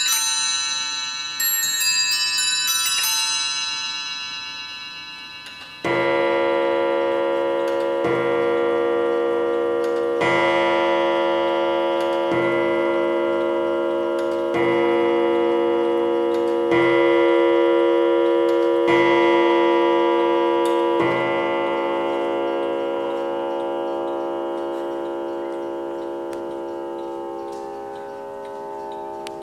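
Winterhalder & Hofmeier triple-fusee mantel clock finishing its quarter chime on bells with a few high notes, then, after a short pause, striking eight o'clock on a deeper gong: eight strikes about two seconds apart, each ringing on and the last dying slowly away.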